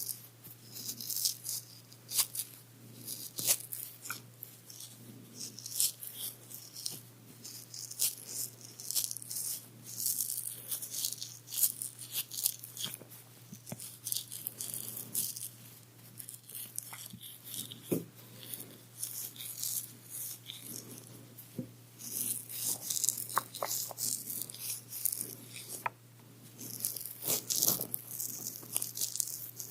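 Close-up ASMR ear-cleaning sounds: an ear pick scratching and scraping in irregular crackly strokes against a microphone's ear, over a steady low hum.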